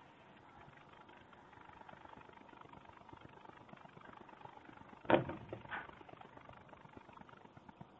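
Faint pencil scratching on a tape-covered plastic shoe last, with a sharp knock about five seconds in and a lighter one just after as the last is turned and set down on the board.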